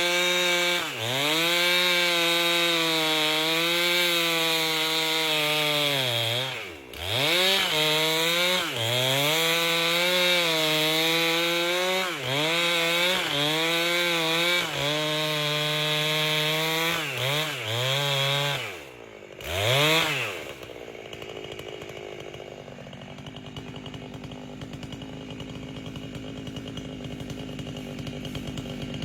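Chainsaw with a 30-inch bar ripping an albasia log lengthwise. The engine pitch dips again and again as the chain loads up in the wood, then recovers. About twenty seconds in, the throttle is let off and the saw drops to a quieter idle.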